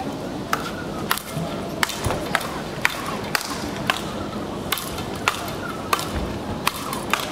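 Speedball rackets striking the ball tethered to a central pole in a fast rally. There are sharp, evenly spaced hits, about three every two seconds.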